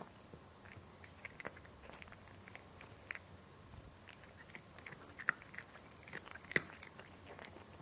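A cat chewing crunchy dry food: irregular crisp crunches and bites, with two louder crunches in the second half.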